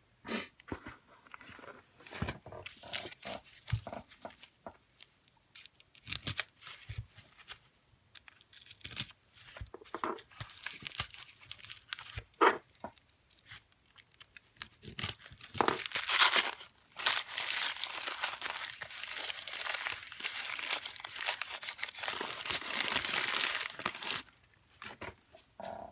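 Packing material being unwrapped by hand: scattered crinkles and handling clicks, then a long stretch of crumpling and tearing wrap about two-thirds of the way through.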